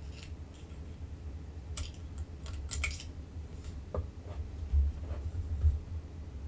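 Small scattered clicks and scrapes of small hand tools being picked up and handled on a workbench, with a few soft low bumps a little past the middle and a steady low hum underneath.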